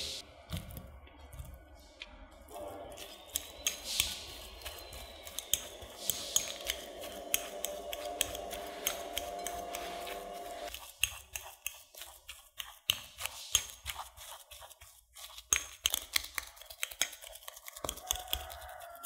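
Metal fork mashing boiled potatoes in a glass bowl: a long run of irregular clicks and taps as the fork strikes the glass through the soft potato.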